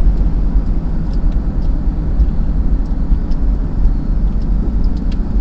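Car cabin road noise while driving: a steady low rumble of engine and tyres, with faint small ticks now and then.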